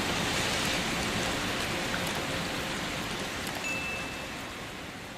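Steady gentle rain with scattered drop ticks, gradually fading out. A brief high tone sounds about two-thirds of the way through.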